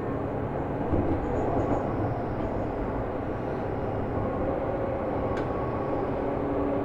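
Seibu New 2000 series commuter train heard from inside the car while running: a steady rumble of wheels on the track with faint motor and gear tones. A light click sounds about five seconds in.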